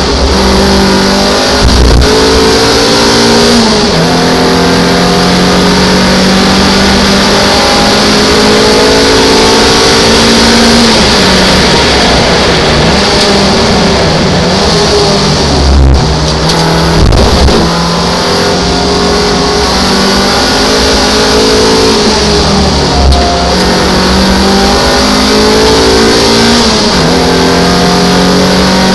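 Interior sound of an MG MGF race car at racing speed: the engine's pitch repeatedly climbs as it accelerates and falls as it slows, over heavy wind and road noise. A couple of low knocks come about halfway through.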